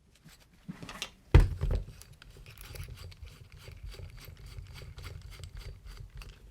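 Tools and a metal part being handled on a workbench: a few light clicks, one sharp knock about a second and a half in, then a low rumble with scattered small clicks and taps.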